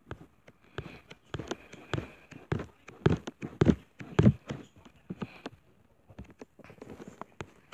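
Irregular clicks and taps, several a second, loudest about halfway through, with a faint high whine in places.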